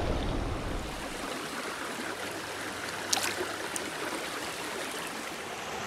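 Shallow, rocky stream riffle running steadily close by, a continuous rush of water. A brief knock about three seconds in and a fainter one just after.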